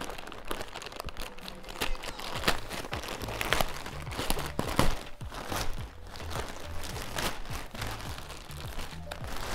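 White plastic mailer bag crinkling and rustling as it is pulled open by hand, a run of irregular sharp crackles.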